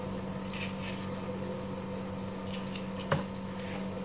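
Onions frying in a covered pot on a gas stove, a steady low hum with a faint sizzle, while the skin is peeled off a frozen tomato by hand with a few soft crackles. One sharp click about three seconds in.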